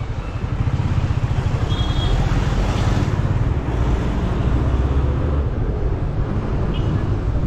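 Motorcycle running at riding speed, a steady low rumble with road and traffic noise around it.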